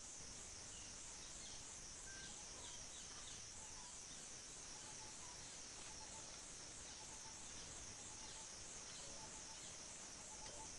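Steady, high-pitched insect chorus that pulses about twice a second, with faint scattered bird chirps.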